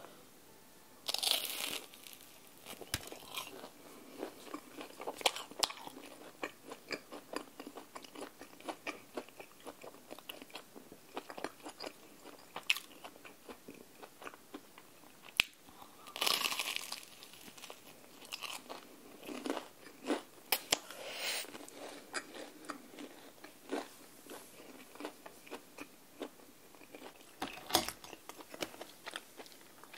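Close-miked bites into the crispy fried batter of a Korean cheese corn dog, followed by steady crunchy chewing. The two loudest crunches come about a second in and again about halfway through.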